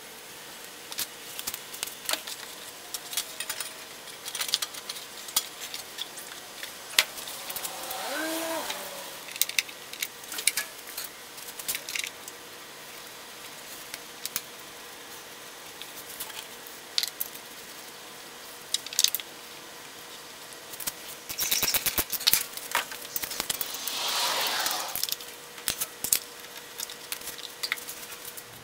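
Hand tools and plastic engine covers clicking, tapping and rattling at intervals as the air cleaner housing is refitted to a Briggs & Stratton Intek engine. A quick run of rapid clicks comes a little past twenty seconds in.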